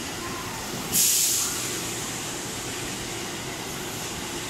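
313-series electric train running past along the platform, a steady rush of wheel and car noise. About a second in, a short, loud hiss of air cuts in and dies away within half a second.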